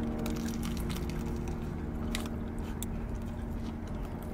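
A person chewing a bite of a spicy chicken sandwich, with sparse faint mouth clicks, over the steady low hum inside a car.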